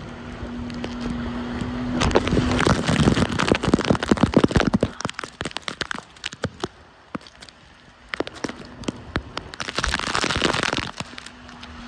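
Tube towed behind a jet ski bouncing over its wake: water splashing and spattering on the microphone in two loud spells, from about two seconds in and again from about eight seconds. The jet ski's engine drones steadily at the start and near the end.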